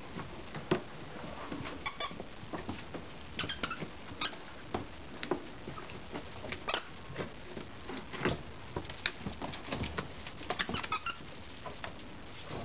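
Miniature dachshund puppies playing rough over a sock toy: their claws and paws clicking and pattering on a hardwood floor, with bursts of short high squeaks now and then.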